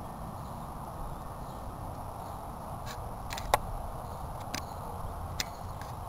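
A chickadee tapping its beak against a mirror, fighting its own reflection: about six sharp, irregular taps in the second half, the loudest just past the middle, over a steady low background rumble.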